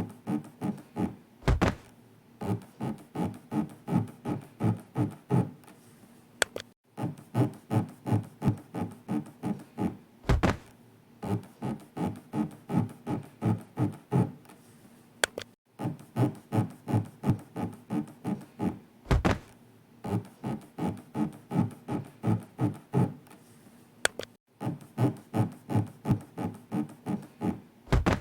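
Rhythmic rubbing sound effect of an imagined elevator floor scraping along an inner wall, pacing a breathing exercise. It comes in runs of short strokes, about four a second, each run lasting about four seconds. The runs are separated in turn by a deep thud and by a short click after a brief gap.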